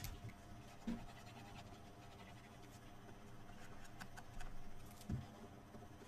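Faint scratching and light handling of cardstock pieces on a work surface, with a soft knock about a second in and another near the end.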